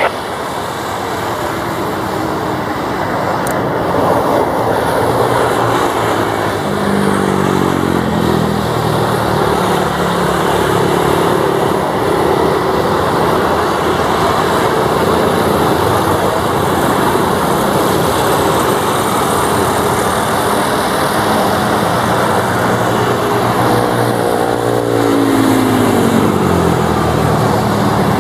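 Twin Garrett TPE331 turboprop engines of CASA NC-212 aircraft at takeoff power, a loud steady propeller drone. The drone falls in pitch about seven seconds in and again near the end as aircraft pass by.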